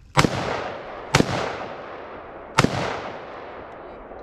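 AR-15 rifle fired three times, the second about a second after the first and the third about a second and a half later, each sharp report trailing off in a long echo.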